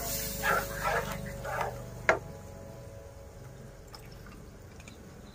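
Milk poured into a pan of fried semolina, dripping and splashing, with a sharp knock about two seconds in; after that the sound settles to a quieter, even pour.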